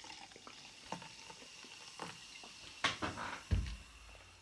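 The tail of orange soda pouring into a glass, then faint clicks and small ticks of hands picking at food on a plate, with a dull thump about three and a half seconds in.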